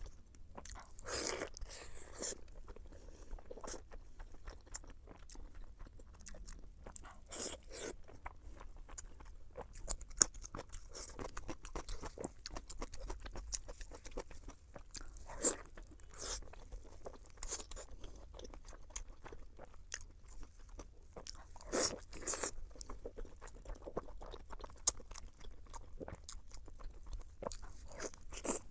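Close-miked eating of sweet pork in chili sauce: steady chewing and biting, with many small mouth clicks and a few louder bites spread through.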